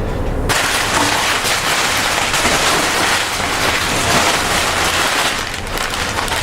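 Packaging crinkling and rustling close to the microphone as a bucket of detailing products is rummaged through: a dense, crackly noise that starts about half a second in.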